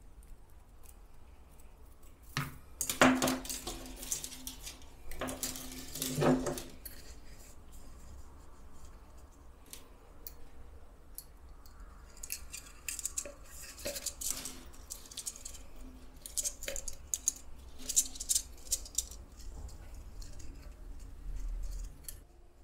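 Handling noises of thin fairy-light wire and a plastic bulb housing: irregular small clicks, taps and scrapes, louder in two short clusters about three and six seconds in, with a run of quick light clicks in the second half.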